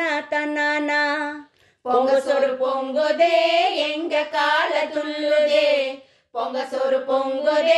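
A group of women singing a Tamil folk song together, with hand claps keeping time. The singing breaks off briefly twice, about a second and a half in and about six seconds in.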